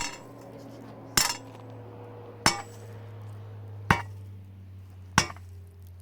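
Hammer strikes, five evenly spaced blows about one every 1.3 seconds, each with a short metallic clink, over a low steady hum.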